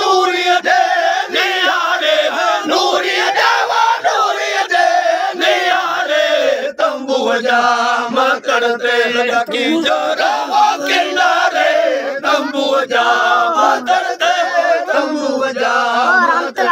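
Several Sindhi raagi faqeers singing Raag Kafi together in loud, high, long-held voices, their lines overlapping and wavering in pitch.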